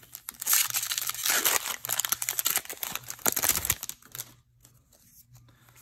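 Foil Magic: The Gathering booster pack wrapper torn open and crinkled by hand, a dense crackling that stops about four seconds in, followed by a few faint clicks of card handling.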